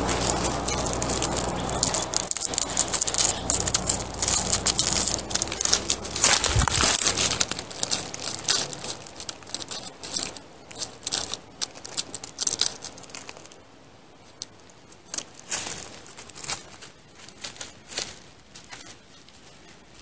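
Footsteps crunching through dry leaf litter and twigs on a forest floor, dense at first, then thinning to scattered crackles and rustles.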